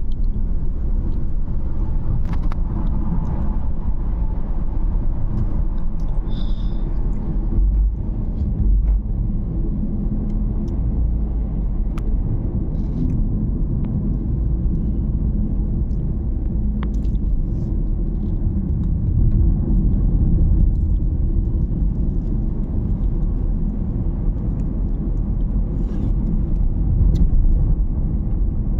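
A car driving on the road, with a steady low rumble of engine and tyres. A few faint clicks and a brief high tone about six seconds in.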